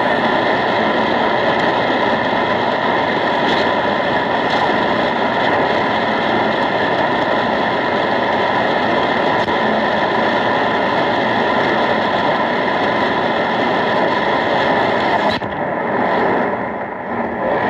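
Shortwave radio receiver's speaker giving out a steady hiss of static between stations while the band is being tuned by hand. About fifteen seconds in the static drops and changes character.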